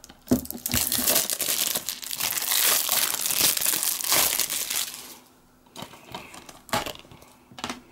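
Clear plastic shrink-wrap on a DVD case crinkling and crackling as it is pulled off and crumpled in the hands, for about five seconds. A few sharp clicks of the plastic case being handled follow near the end.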